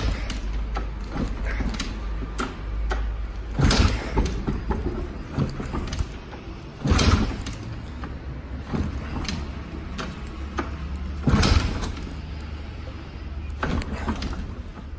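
Kickstarter of a 1974 Japauto VX 500 motorcycle kicked four times, roughly every three to four seconds, each kick a thump as the stiff, high-compression engine turns over without firing. The engine, unused for four or five years and on old fuel, won't start.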